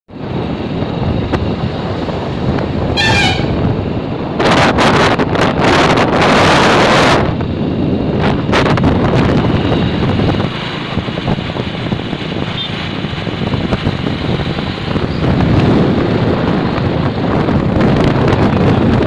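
Steady road and wind noise from a moving vehicle, with wind buffeting the microphone. A short horn honk sounds about three seconds in, and a louder rush of noise follows from about four and a half to seven seconds.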